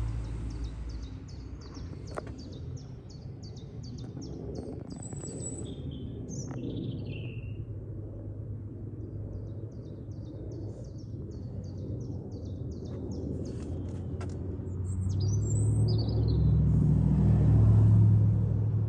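A small bird sings two runs of rapid, evenly repeated high chirps with a few single calls between them. Under it runs a low rumble that swells louder near the end.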